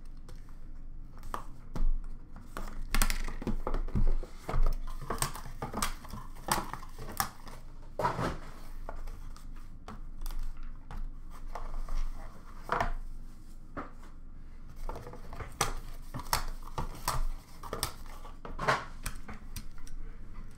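Hands opening a hockey card box and handling the small cardboard boxes inside on a glass counter: irregular taps, knocks, scrapes and rustles of cardboard.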